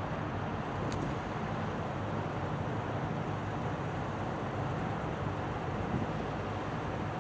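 Steady low mechanical rumble with a hum, under an even outdoor wash of noise, and one brief click about a second in.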